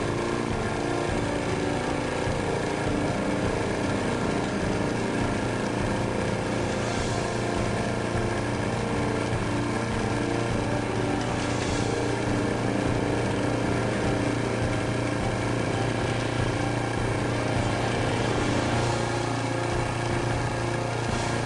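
Electric vacuum pump running steadily with an even motor hum, drawing the air out of a bell jar.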